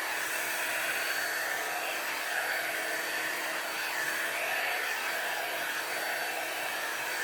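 Handheld hair dryer running steadily, a constant rush of air with a faint steady whine, as it blow-dries natural hair.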